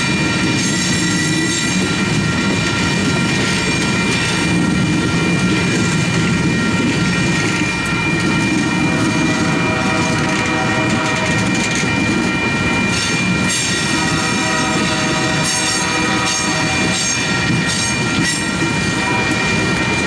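Coal hopper cars rolling past at a grade crossing: a steady rumble of steel wheels on the rails, with high, steady ringing tones over it. About nine seconds in, a second, lower set of tones joins.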